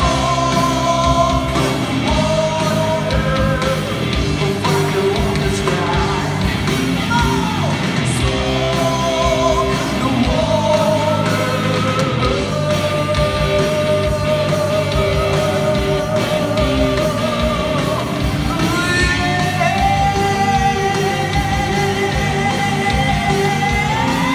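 Live rock band playing in a hall: a singer's voice, holding long notes, over electric guitar and drums.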